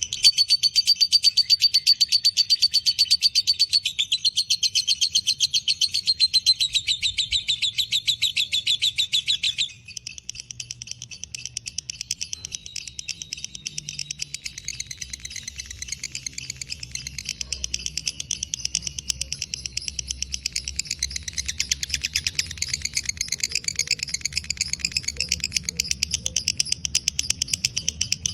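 Lovebird's 'ngekek panjang': a long, unbroken run of rapid, sharp, high-pitched chattering notes. It is loud for the first ten seconds or so, then drops suddenly to a quieter level and carries on without a break.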